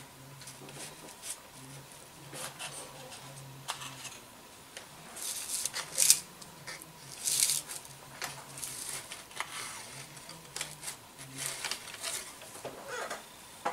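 Hands working on a balsa model airplane wing at the workbench: irregular light clicks, taps and rustles of wood and tools, with two louder scraping sounds about six and seven and a half seconds in.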